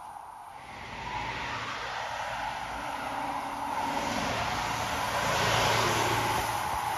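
Rear-loader garbage truck driving past, its engine hum and tyre noise building to a peak about five to six seconds in, mixed with other road traffic.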